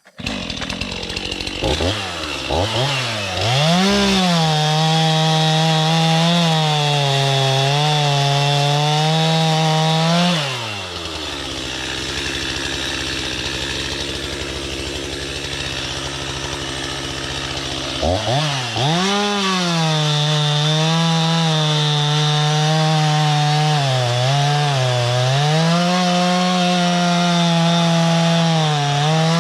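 Chainsaw run at full throttle, its pitch wavering and dipping as it works through a log. About ten seconds in it drops back to idle for several seconds, then revs up and cuts again.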